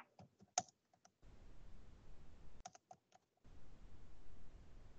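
Scattered clicks of a computer keyboard and mouse, the sharpest about half a second in and a few more near the middle, with faint background noise cutting in and out twice between them.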